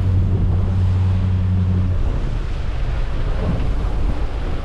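Wind buffeting the microphone on a boat at sea, over a steady low hum from the boat's engine that stops about two seconds in.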